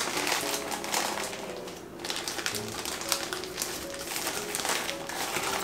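Light background music with a run of small clicks and taps from measuring a cup of packed brown sugar into a glass mixing bowl.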